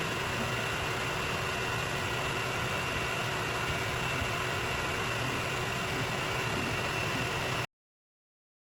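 3D printer running: a steady whir of its cooling fans with a faint steady whine, cutting off abruptly near the end.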